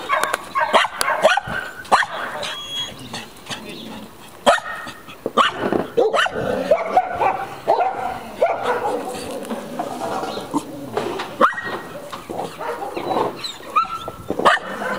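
Dog barking on and off, with drawn-out whining in between.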